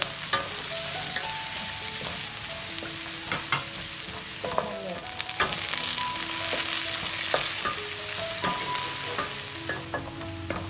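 Food sizzling as it is stir-fried in a hot pan, with a spatula clicking and scraping against the pan many times.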